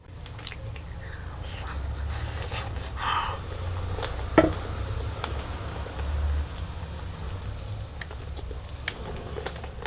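Close-miked eating sounds of curry and rice: wet squishing and chewing with scattered small clicks and smacks over a steady low hum, and one sharper smack about four and a half seconds in.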